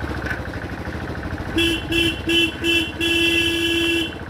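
A motorcycle horn sounding four short beeps and then one long beep of about a second, over the motorcycle's engine running at low speed.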